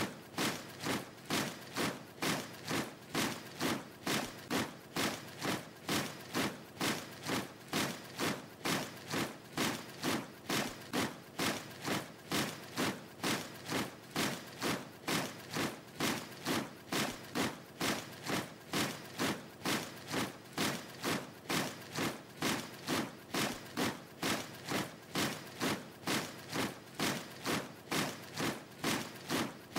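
A steady, even beat of dull thuds, about two a second, unchanging in pace and loudness.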